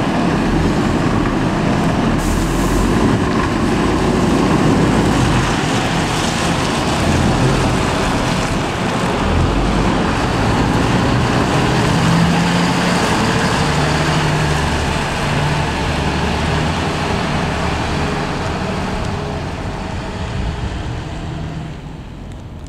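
Fire trucks' diesel engines running as they pull out and drive off, with a short air-brake hiss about two seconds in; the engine noise fades near the end as the trucks move away.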